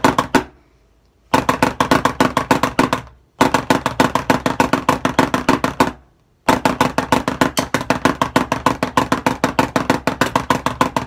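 Snare drum played with two sticks: runs of fast, even strokes, rolls played as pulsations, with short pauses between the runs of up to about a second. The drumhead rings under the strokes.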